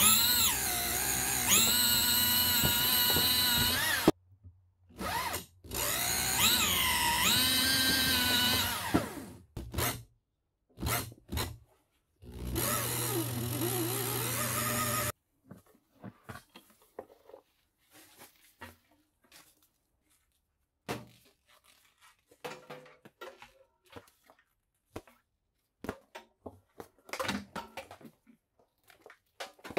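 Skil 3/8-inch corded electric drill driving a drill-powered cable stripper as an insulated power cord is fed through, running in four runs over the first fifteen seconds, its whine dipping and rising as the trigger speed changes. Faint clicks and rustles of wire being handled follow.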